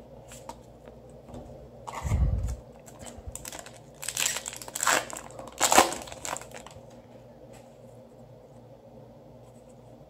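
Foil Yu-Gi-Oh! booster pack wrapper being torn open, with several sharp rips and crinkles between about four and six seconds in. A thump comes shortly before.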